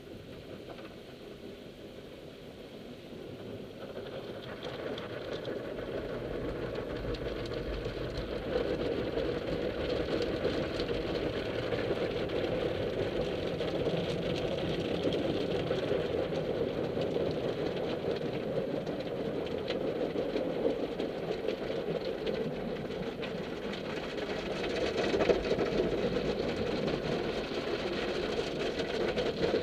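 Automatic car wash equipment working over the car, heard muffled through the body from inside the cabin: a dense rumbling, fluttering wash of water and scrubbing against the car. It builds over the first several seconds, then stays loud and steady, with a brief louder surge near the end.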